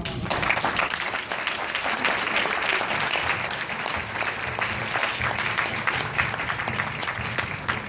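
Audience applauding: many hands clapping in a steady, continuous patter.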